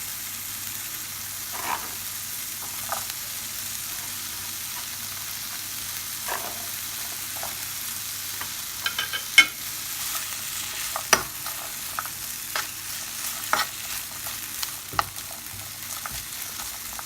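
Diced green beans, onion and smoked pancetta sizzling steadily in sunflower oil in a frying pan, with a utensil knocking and scraping against the pan now and then, more often in the second half.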